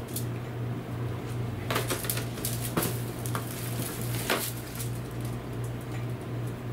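Metal clinks and clatters from a rotisserie spit and its forks being handled and an aluminium foil pan being moved, in a cluster between about two and four and a half seconds in, over a steady low hum.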